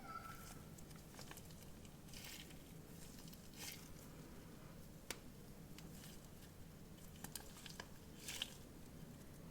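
Quiet close-up handling of a stress ball being cut open: soft squishy, crunchy sounds with a few brief scratchy strokes and a sharp click about five seconds in.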